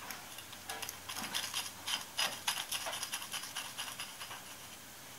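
Light metallic clicks from a hand tool being worked at a lathe chuck, a quick run of about four or five a second that dies away near the end.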